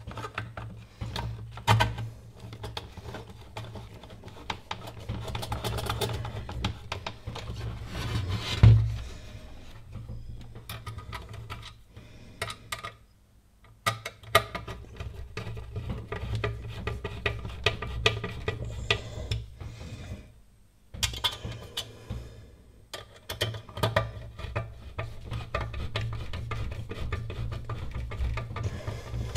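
Irregular clicks, taps and knocks of small metal parts, screws and a screwdriver being handled while a power-supply case is reassembled, with one louder knock about nine seconds in and two short lulls.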